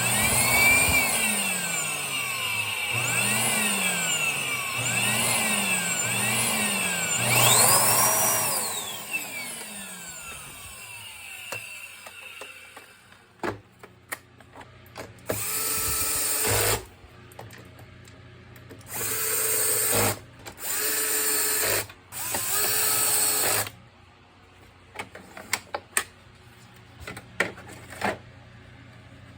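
Vacuum cleaner motor running with its pitch sagging and recovering several times, as if briefly switched off and on, then switched off about eight seconds in and winding down with a falling whine. Later it is run in four short bursts, followed by a few clicks.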